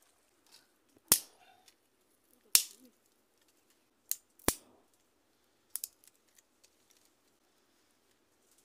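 Dry twigs snapping sharply, about five separate cracks, as they are broken by hand for kindling. The cracks near the start are the loudest.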